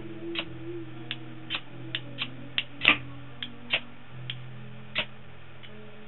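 Knife blade scraped in short strokes down a ferrocerium fire steel, about twice a second, unevenly spaced, with the sharpest stroke about three seconds in: scraping the black factory coating off a new rod.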